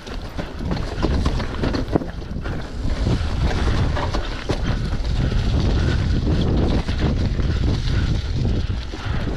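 Downhill mountain bike ridden over a rough dirt trail: a steady heavy rumble of wind buffeting the GoPro's microphone and tyres on the ground, broken by many quick rattling knocks from the bike. The rumble grows heavier about three seconds in.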